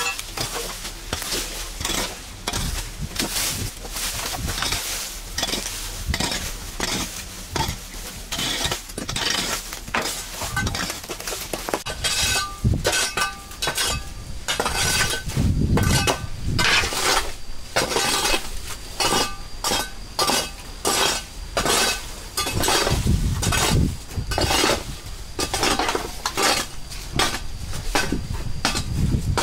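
Continuous, irregular clattering and clinking of hard objects being handled or scraped, with faint ringing in the second half.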